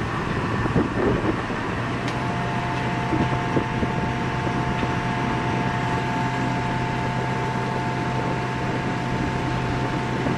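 Heavy lifting crane working: a steady low engine drone, joined about two seconds in by a steady whine from the hoist as it hauls on the cables righting the capsized boat.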